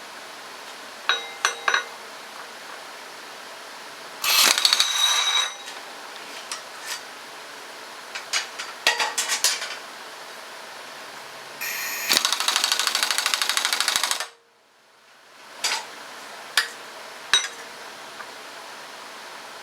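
Impact wrench on its high setting hammering the pulley installer tool, pressing a power steering pump pulley onto the pump shaft. It runs in two bursts, a short one and then one of about two and a half seconds, with metal clinks of the tool and socket between and after.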